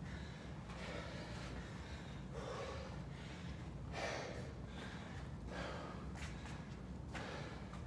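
Men breathing hard after exercise, with heavy breaths every second or so as they recover between rounds of a circuit workout. A steady low hum runs underneath.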